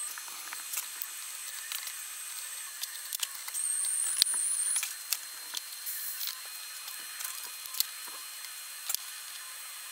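Small metal parts clicking and tapping against the aluminium housing of a Bosch P7100 inline injection pump as it is handled and parts are fitted, over a steady hiss. A brief high squeal about three and a half seconds in ends in the sharpest click.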